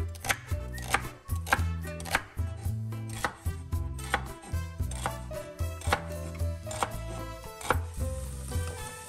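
Chef's knife chopping celery stalks on a wooden cutting board, a steady run of sharp knocks about two a second. Near the end the chopping stops and diced onions sizzle in oil in a pot.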